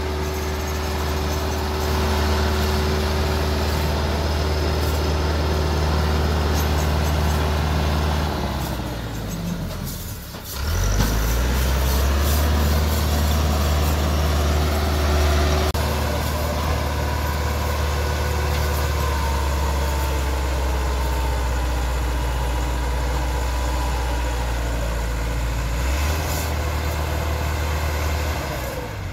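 Massey Ferguson 385's four-cylinder diesel engine running under heavy load, hauling a fully loaded trolley over soft ground. Its note fades about nine seconds in, then revs back up and holds steady.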